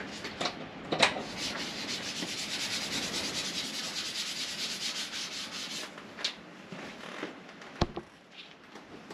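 Motorcycle front wheel being handled and turned over on a carpeted floor: a steady rubbing, rasping noise for several seconds, with a few light knocks and one sharp knock just before the end as the wheel is laid on a wooden block.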